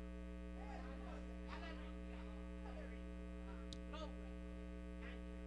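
Steady electrical mains hum with a ladder of overtones, with faint voices in the background.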